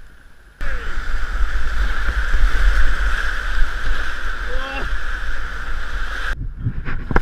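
Rushing white water around a kayak's GoPro camera, loud and steady, with low wind-like buffeting on the microphone. It starts abruptly under a second in and cuts off near the end, where sharper splashes follow.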